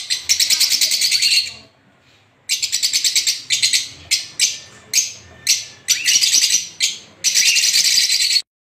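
Small pet finches chirping in fast, buzzy trains: a long run, a brief pause, a string of short bursts, then another long run that cuts off abruptly near the end.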